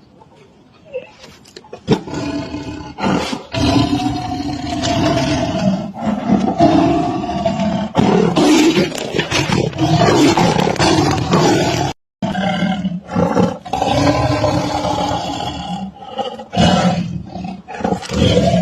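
Big cats roaring, in repeated loud pitched calls, with the sound cutting out abruptly for a moment about two thirds of the way through.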